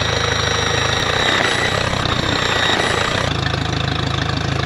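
Mercury 60 outboard motor idling steadily out of the water, cooled by a garden hose on a flushing attachment. Partway through, the deep steady note gives way to a noisier hiss for about two seconds, then returns.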